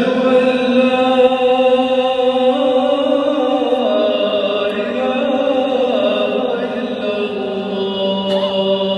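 A single voice chanting in long, held notes that shift slowly in pitch.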